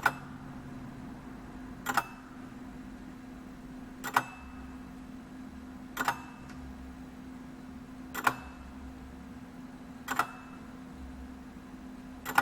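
A late-1940s Omega Swiss lever escapement display model ticking slowly, one sharp double click about every two seconds, as the pallet releases the escape wheel tooth by tooth under the swing of the balance wheel. A faint steady hum runs underneath.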